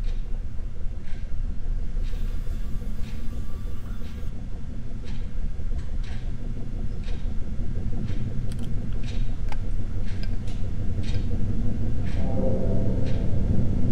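Low rumbling suspense drone from a horror film's sound design, swelling near the end. A faint tick sounds about once a second, like a clock.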